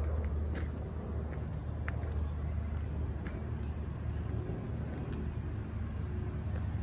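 Steady low rumble, with footsteps on a wood-chip trail giving a few faint clicks and crunches over it.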